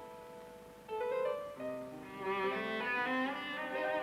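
Instrumental break of an Arabic pop song: a held keyboard chord fades, then bowed strings come in about a second and a half in, playing a melody with vibrato.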